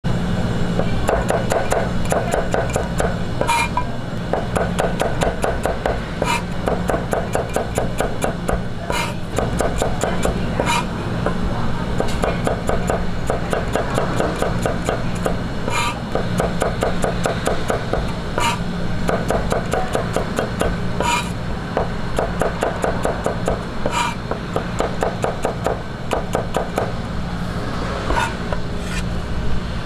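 Chinese cleaver slicing garlic cloves on a cutting board: runs of rapid knife strokes against the board, several a second, broken by short pauses and the odd louder knock. A steady low hum runs underneath.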